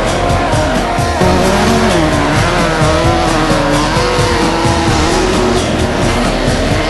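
Off-road race car's engine running hard inside the cabin, its pitch rising and falling with the throttle over a loud rush of wind and road noise.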